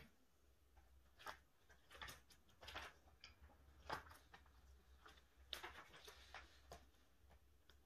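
Faint, short rustles and crinkles of clear plastic binder sleeves being handled as photocards are slid into the pockets, coming every half second to a second or so, over a faint low hum.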